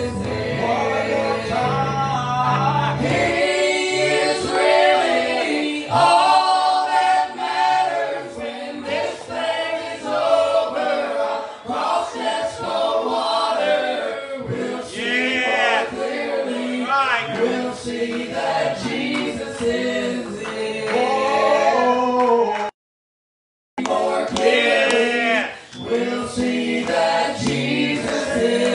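Male and female voices of a family gospel group singing a gospel song together in harmony. The sound cuts out completely for about a second near the end.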